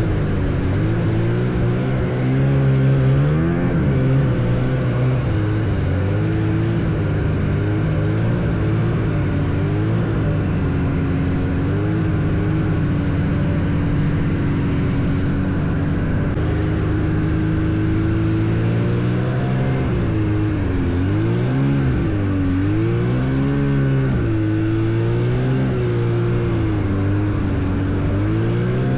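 Vintage John Deere snowmobile's two-stroke engine running under way. It holds a steady pitch for long stretches, then repeatedly drops and climbs as the throttle is eased off and opened again in the second half.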